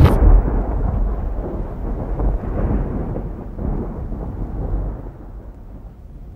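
Deep rumbling tail of a heavy boom that ends the music track, fading slowly away like rolling thunder.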